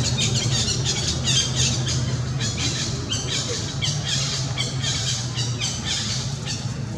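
Many short, high-pitched squeaky chirps in quick succession, over a low steady hum.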